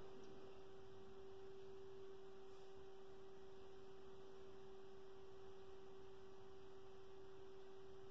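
Faint, steady electrical hum: one unchanging mid-pitched tone with a weaker higher tone above it, over low hiss.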